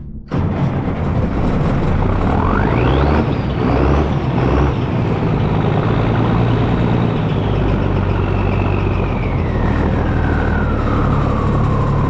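Multifuel diesel engine of a 5-ton 6x6 military truck running after starting well. A high whine rises sharply about two seconds in and slowly falls away over the last few seconds.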